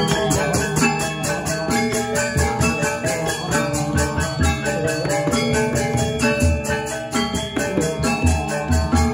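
Balinese gamelan gong ensemble playing: bronze metallophones ring in a fast, even pulse of strokes over held tones, with deep low gong or drum strokes every second or two.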